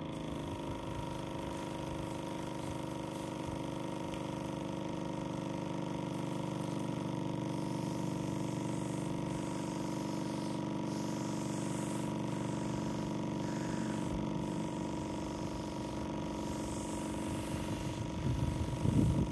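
Pressure washer's motor running steadily, a continuous even drone.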